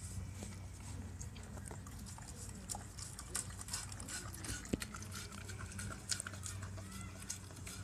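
Dog eating, a run of irregular wet smacks and clicks of licking and chewing.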